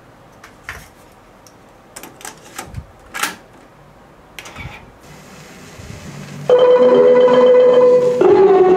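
Clicks and clacks of a cassette being loaded into a Yamaha KX-530 cassette deck and a transport button being pressed, then faint tape hiss as the tape starts running. About two-thirds of the way in, instrumental music from the tape starts loudly, with steady held notes.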